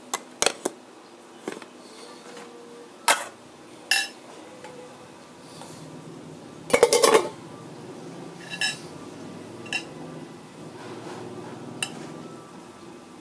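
Spoon and fork clinking against a plate in scattered sharp clinks, with a quick cluster of several clinks about seven seconds in.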